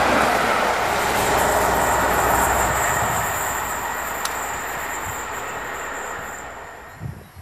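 A First Great Western High Speed Train (InterCity 125) running away into the distance: a steady rush and rumble of wheels on rail with a thin high tone above it, fading over several seconds and dropping away near the end. One sharp click falls about four seconds in.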